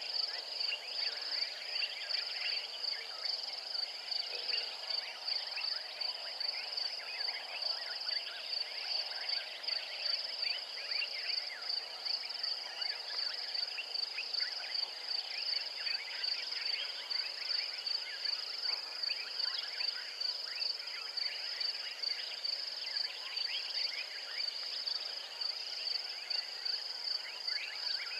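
Insect chorus in the bush: a steady, high pulsing trill at about two to three pulses a second, over a dense background of many short chirping calls.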